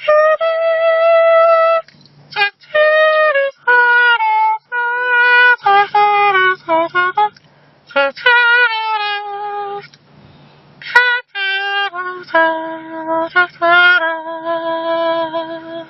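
A saxophone-like melody made with the hands and mouth alone, no instrument. The player blows through his hands in short phrases of held and sliding notes, with brief breaks between them.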